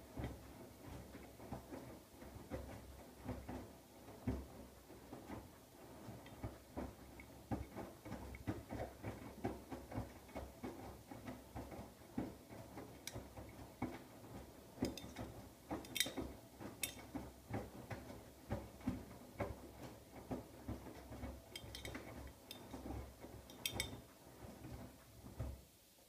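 Siemens iQ700 front-loading washing machine's drum turning the wet load during a 60 °C whites wash: an uneven run of soft thuds and sloshes as the laundry tumbles, with a few sharp clicks in the second half.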